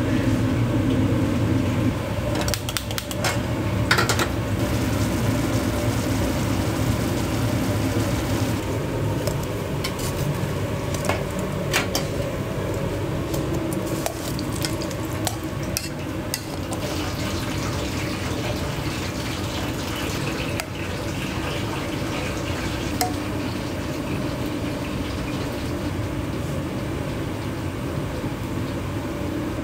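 Commercial kitchen work: a steady background hum with scattered clinks and clatter of dishes and utensils.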